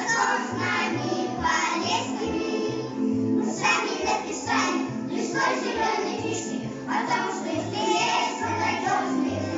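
Children singing a song together over a musical backing track with a regular bass beat.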